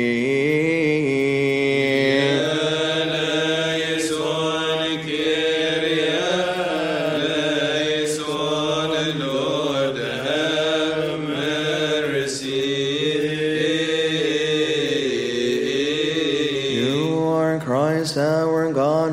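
A man's voice chanting a long melisma in Coptic liturgical chant, the pitch sliding and turning between held notes over a steady low drone. Near the end the line breaks into quicker, shorter notes.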